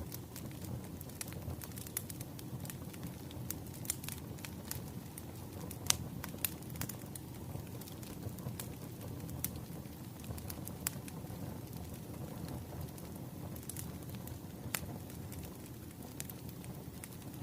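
Wood fire burning with a steady low rush and irregular sharp crackles and pops of the burning logs.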